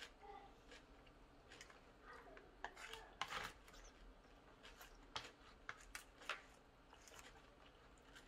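Faint scattered clicks and scrapes of wooden chopsticks against a plastic takeout bento tray, with a louder scrape about three seconds in.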